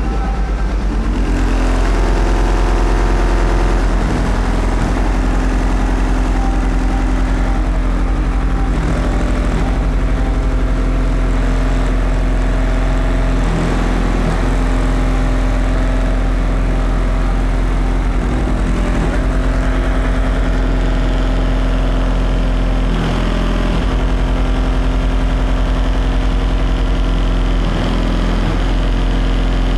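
Competition car-audio subwoofer system in an SUV playing deep bass notes at extreme level, heard from outside as a continuous loud low rumble. The notes shift every few seconds.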